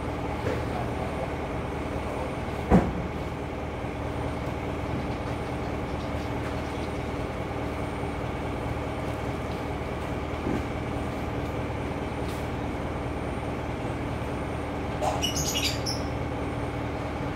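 Steady mechanical hum, with a single sharp knock about three seconds in and a brief burst of high-pitched chirping near the end.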